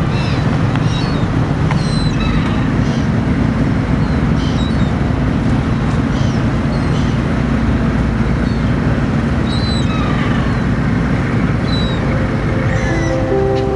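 A small motorboat's engine running steadily at low speed, with birds calling over it in short high cries.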